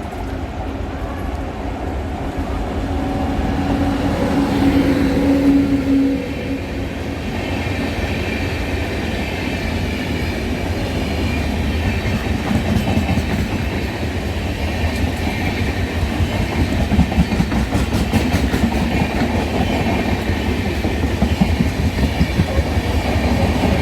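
Express train passing at speed on Indian Railways: a continuous heavy rumble with the wheels clattering over rail joints, the clacks sharper in the second half. A steady tone sounds from about three seconds in and cuts off about six seconds in.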